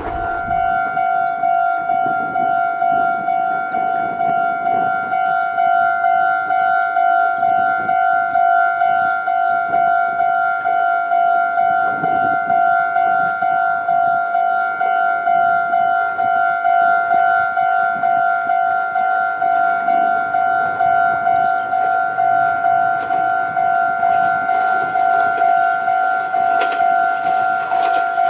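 Japanese railway level-crossing warning bell ringing, a quick, evenly repeated electronic ding on one steady pitch. It is the signal that a train is approaching and the crossing is closed.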